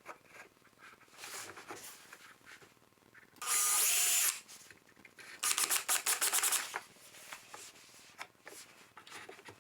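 A handheld power tool, likely a drill, runs in two short bursts about three and a half and five and a half seconds in; the second burst has a fast clicking rattle. Small knocks of handling come between the bursts.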